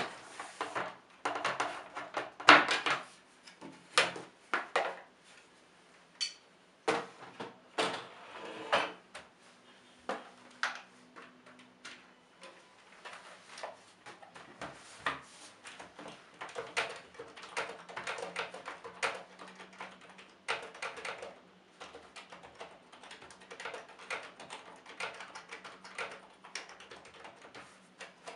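Plastic knocks and clicks as a Microsoft Natural Ergonomic Keyboard 4000 is handled, turned over and set down on the table, followed in the second half by quick typing on its keys.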